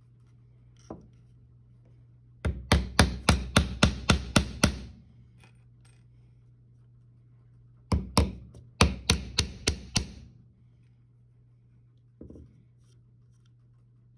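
Claw hammer driving nails into a pine birdhouse board: a run of about ten quick blows, then a few seconds later another run of about seven, about four to five blows a second. The nails are being driven until their points just start coming through the other side of the board.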